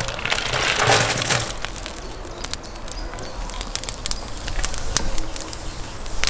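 Dry twigs poured from a plastic bucket into a hot tandoor, rustling and clattering down onto the bottom about a second in, followed by scattered sharp crackles as they start to smoulder for hot smoking.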